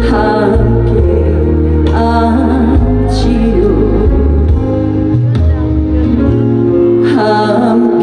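A woman singing a Korean trot song live into a handheld microphone over instrumental accompaniment with a steady bass line. Her sung lines stand out near the start, around two seconds in, and again near the end.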